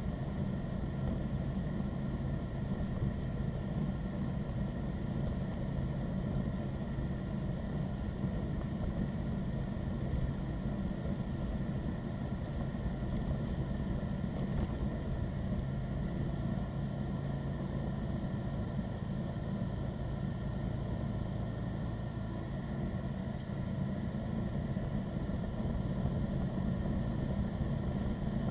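John Deere lawn tractor's engine running at a steady pitch while the tractor pushes snow with a front push blade.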